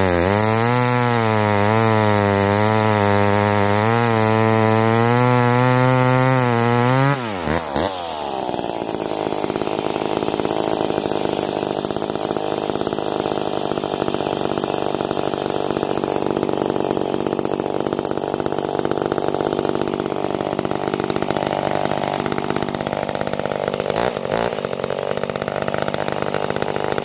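McCulloch 10-10 Automatic two-stroke chainsaw at full throttle cutting through a log, its pitch wavering under load. About seven seconds in the throttle is let off and the saw drops to a steady idle for the rest.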